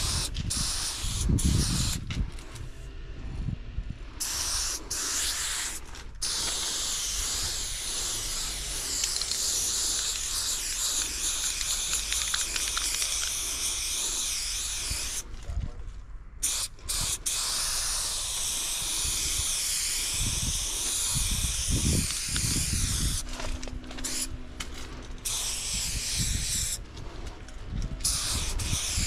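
Aerosol spray-paint can hissing in long bursts with short breaks between them, as yellow paint is laid onto a freight car. A few low thuds come near the start and again about two-thirds of the way through.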